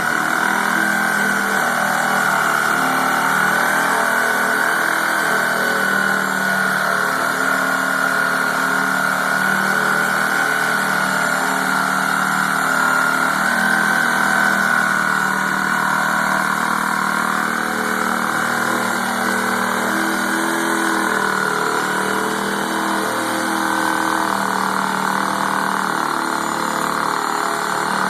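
Reciprocating saw running continuously with a steady, slightly wavering motor whine as it cuts palm fronds lengthwise.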